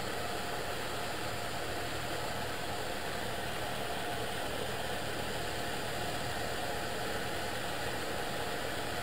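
Steady drone of a Cessna's single piston engine and propeller, throttled back while the aircraft glides down on approach.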